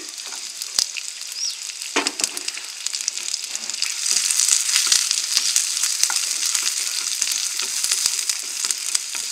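Chopped onions sizzling in hot butter in a non-stick frying pan, stirred with a wooden spatula. The sizzle grows louder about four seconds in, with scattered light taps and scrapes of the spatula on the pan.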